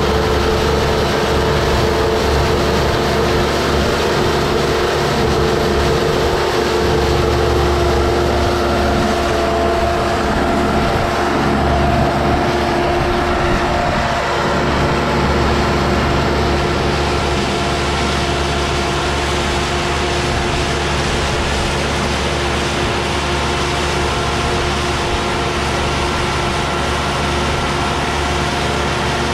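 Başak 2075 tractor engine running steadily under load, driving a small square straw baler through its power take-off. The baler's pickup and packing mechanism works along with the engine in a continuous mechanical din.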